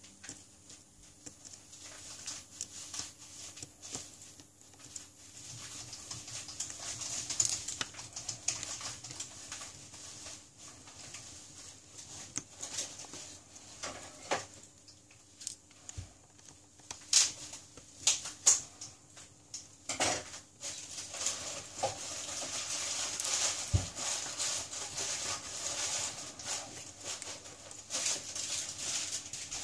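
Irregular clicks, taps and scraping of small hand tools on a Samsung Galaxy S7 smartphone being taken apart. A scratchy hiss grows stronger in the last third.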